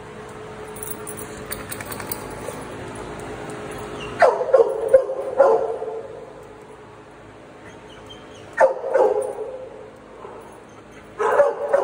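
Medium-sized dog barking in three bursts of a few barks each: the first about four seconds in, another around nine seconds, and more near the end.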